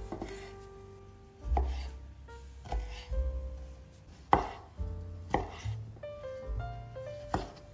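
A santoku knife cutting cherry tomatoes on a wooden cutting board: sharp knocks of the blade on the board, about one every second, unevenly spaced. Soft background music with held piano-like notes plays underneath.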